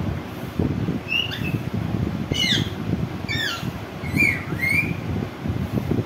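Caged green Psittacula parakeet giving about five short, high calls, some sweeping up in pitch and some down, over a steady low rumble.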